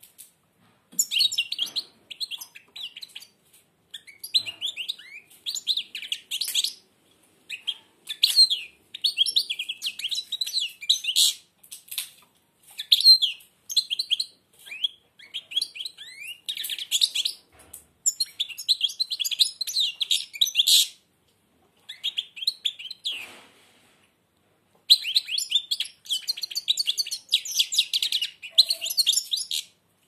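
European goldfinch singing with its beak almost closed: long runs of rapid, high twittering trills and chirps in bursts, breaking off for a few seconds about two-thirds of the way through before starting again.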